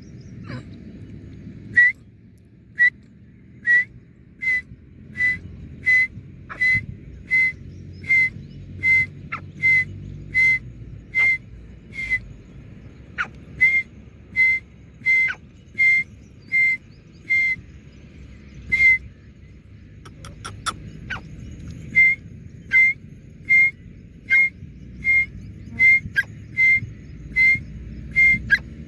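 A long series of short, clear whistled notes on one high pitch, repeated about one and a half times a second. The notes break off for a few seconds about two-thirds of the way through, then carry on.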